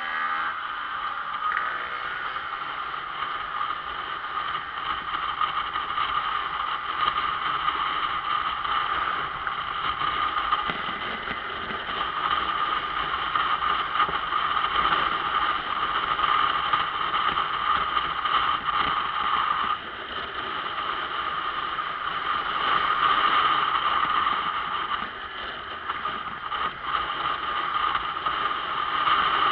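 Steady wind and road noise from a camera riding on a moving motorcycle, a constant rushing hiss, easing briefly a couple of times.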